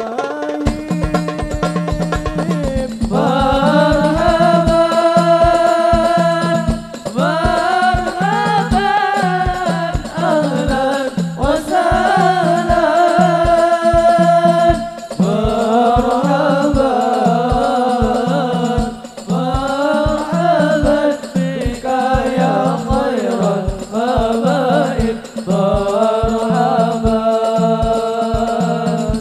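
Hadroh music: voices singing an Arabic sholawat (devotional song in praise of the Prophet) over a steady, regular beat of frame drums.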